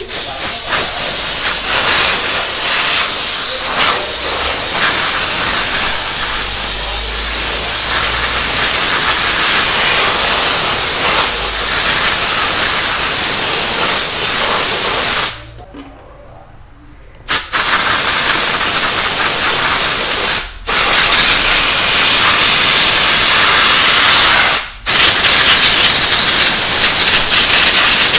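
Compressed-air spray gun hissing loudly and steadily as it blasts a rear drum brake assembly clean. The trigger is released for about two seconds midway and twice more very briefly.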